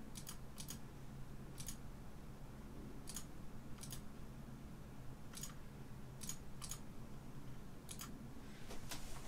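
About a dozen light, sharp clicks at irregular intervals, some in quick pairs, over a faint steady low hum.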